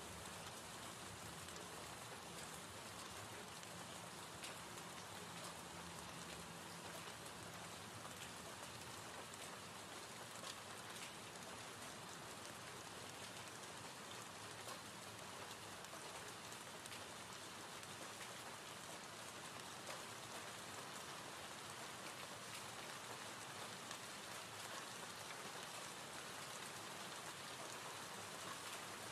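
Gentle rain ambience track: a steady soft hiss of falling rain with faint scattered drop ticks.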